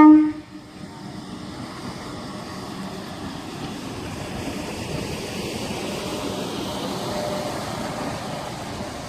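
A train gives one short blast of its horn, then a train runs past with a steady rumble that slowly grows louder.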